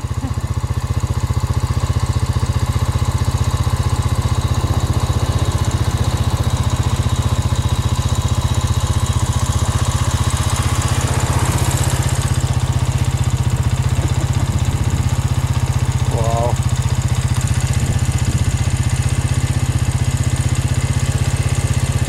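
A steady low engine drone with a fast, even pulse. Car tyres hiss through snow slush as a car passes, swelling about ten to twelve seconds in.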